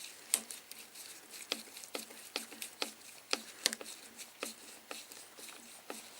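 Irregular light clicks and taps, about a dozen, from a screwdriver working the fastening of a handlebar-mounted bracket.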